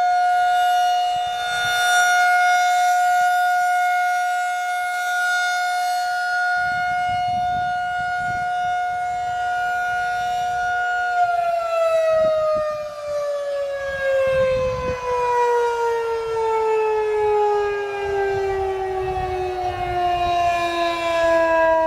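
Federal Signal 2001-SRN outdoor warning siren sounding a steady tone on its monthly test, then winding down about halfway through, its pitch falling steadily.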